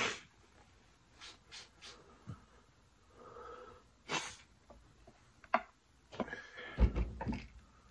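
Close-miked mouth sounds of a person eating seafood-boil lobster tail: scattered wet clicks and lip smacks, a brief murmur about three seconds in, and a denser run of chewing with a low thump near the end.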